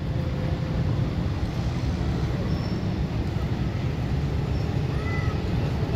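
Diesel locomotive engine running with a steady low rumble as a passenger train pulls out of the station.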